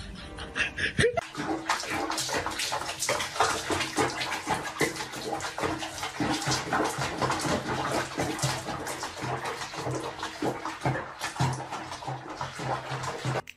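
Water splashing and sloshing in a small basin around a cat sitting in it up to its neck. The splashing starts about a second in and goes on as a dense, irregular patter.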